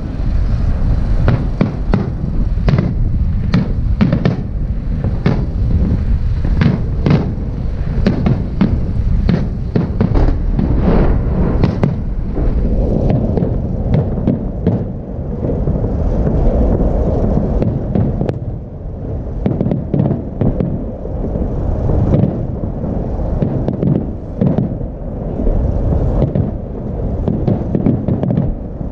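Aerial firework shells bursting in rapid succession: a dense, unbroken run of bangs and crackles over a constant low rumble, thickest in the first half.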